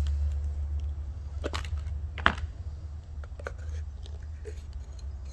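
Cut-open aluminium Mann fuel filter canister being pulled apart by hand: scattered clicks and knocks of the metal housing and end cap, the sharpest a little over two seconds in, over a steady low hum.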